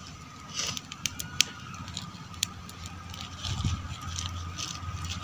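Small fire of dry coconut-leaf midribs and coconut husks crackling, with a few sharp snaps in the first half. Wind rumbles on the microphone from about halfway in.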